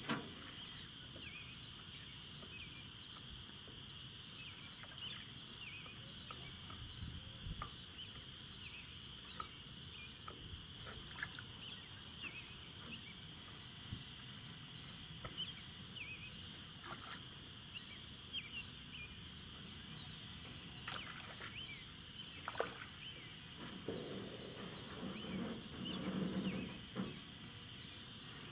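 A steady, high-pitched chorus of calling animals with rapid repeated chirps, over scattered faint clicks and knocks.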